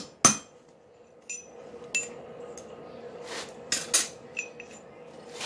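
Several irregular sharp clinks of hard objects knocking together, some with a brief ring, the loudest just after the start, over a faint steady hum.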